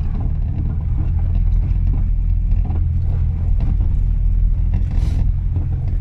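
Car interior noise while driving: a steady low rumble of engine and tyres, with scattered small knocks and rattles and a brief hiss about five seconds in.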